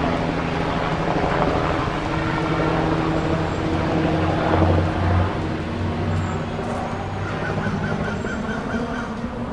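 Steady engine noise of vehicles, with a quick run of about eight high beeps near the end.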